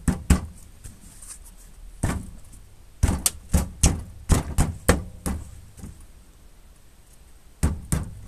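Hard knocks and clunks from parts and tools being handled while the scooter's front wheel is refitted: two near the start, one about two seconds in, a quick run of about seven knocks around three a second, then two more near the end.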